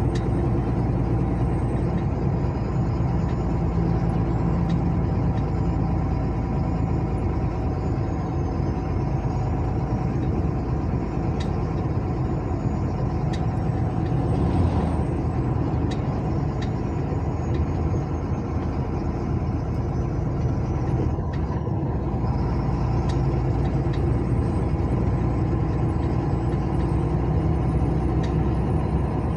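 Steady engine and road noise of a car travelling along a highway.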